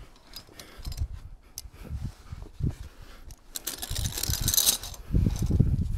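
Via ferrata climbing gear clinking and rattling: metal carabiners and lanyard hardware knocking together in short clicks and a jangle, over dull thumps of movement.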